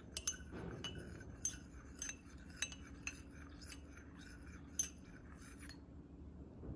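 Metal teaspoon stirring a drink in a glass mug, clinking against the glass about twice a second, then stopping near the end.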